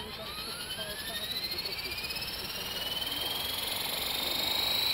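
Tarot 450-size electric RC helicopter spooling up: the brushless motor and drive gears give a whine that rises steadily in pitch and grows louder as the rotor head gathers speed.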